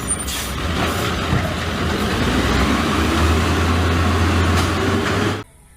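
Garbage truck engine running, a dense steady rumble with a strong low hum, cutting off suddenly about five and a half seconds in.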